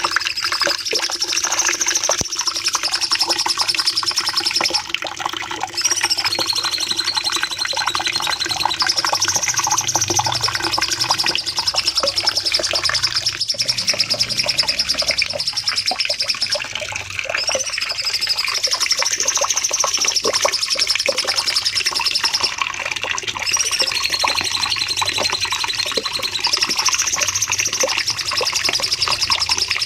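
A cucak cungkok songbird sings a long, rapid, unbroken chattering song ('nembak panjang'). A high whistled phrase recurs every several seconds.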